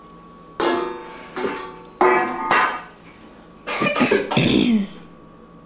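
Metal pots and pans being banged by babies: about five sharp clangs, each ringing on and fading.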